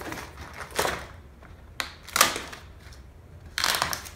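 Belbien wood-grain self-adhesive vinyl film rustling and crinkling in three short bursts as it is lifted and reapplied against a cabinet side panel.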